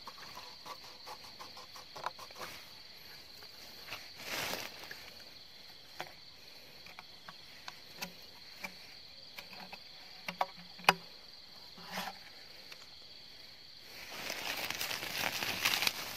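Night insects chirring steadily at one high pitch, with scattered small clicks and knocks. From about two seconds before the end, a woven plastic sack rustles and crinkles loudly as it is handled and opened.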